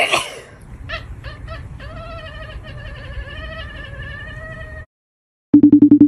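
A cat's long, drawn-out yowl, its pitch wavering, lasting about four seconds. Near the end comes a short, loud buzz pulsing about ten times a second.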